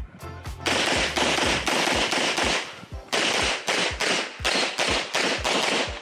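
Rapid pistol fire from a Limcat .40 competition pistol: strings of sharp shots a few tenths of a second apart. Background music plays under the shots.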